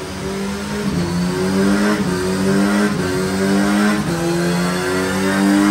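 Kawasaki Z900RS's 948 cc inline-four running on a rolling-road dyno through a Black Widow full exhaust system, the revs climbing with a short break about once a second.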